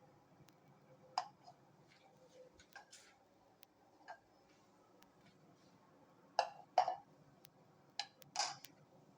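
A low steady hum with scattered small clicks and several short handling or knocking sounds, the loudest clustered in the second half.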